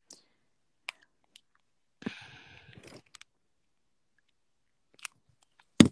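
Phone handling noise: scattered small clicks, a short rustle about two seconds in, and a sharp knock near the end.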